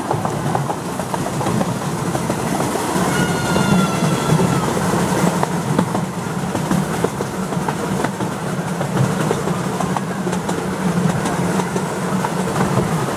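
Miniature steam railway's passenger carriages running steadily over the track, a continuous rumble with frequent small clicks from the wheels and rail joints. A short whistle-like tone sounds about three seconds in, lasting a second and a half.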